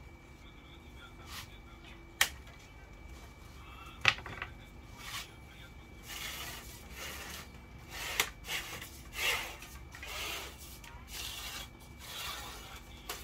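Telescopic fishing rod and a cable being handled: two sharp clicks, then a string of short rubbing, scraping sounds as hands and cable work along the rod.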